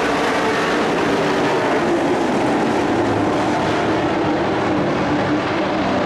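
Dirt-track race trucks' engines running hard around the oval, a loud steady engine drone with no break.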